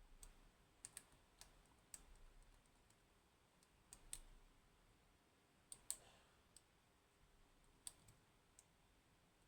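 Faint, irregular clicks of a lock pick working the pins of a 15-pin Codkey Locksys pin-tumbler lock, about a dozen small ticks scattered unevenly.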